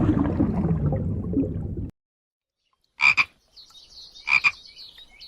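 A steady rushing noise that cuts off suddenly about two seconds in. After a moment of silence a frog calls: two short, loud croaks about a second and a half apart, with faint high chirping between them.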